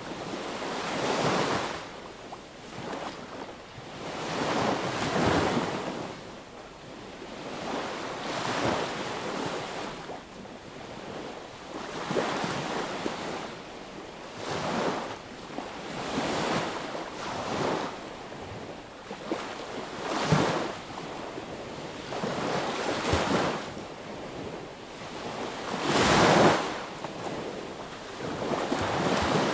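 Small sea waves breaking and washing up on a beach, one after another every few seconds, with the biggest one near the end.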